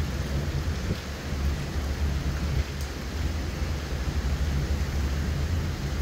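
Hurricane wind and rain: a steady low rumble with hiss above it, swelling and easing in gusts.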